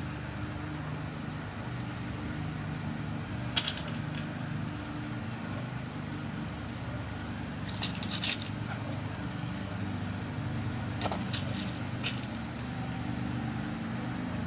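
Small sharp metallic clicks as tiny lock pins are loaded one by one into the pin chambers of a lock cylinder being rekeyed: one about three and a half seconds in, a cluster around eight seconds, and a few more near eleven and twelve seconds. A steady low hum runs underneath.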